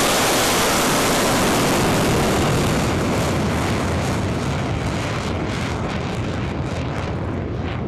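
Rocket motor of a ballistic missile launched from a rail car: a loud steady rushing noise that slowly fades as the missile climbs away, its hiss dropping off near the end.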